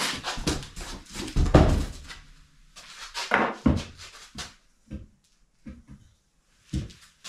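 Handling noise from unpacking a steel lawn mower jack: cardboard rustling, then a heavy thump about a second and a half in and a run of sharper knocks and clicks as the painted steel pieces are lifted from the box and handled.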